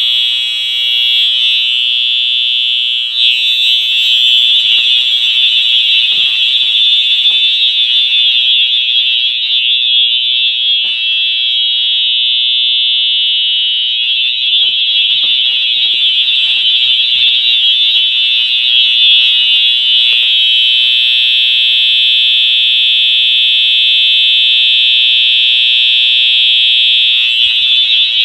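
Wheelock EH-EL1 electronic fire alarm horn sounding in alarm after the manual pull station is pulled: a loud, steady, high-pitched tone with no breaks.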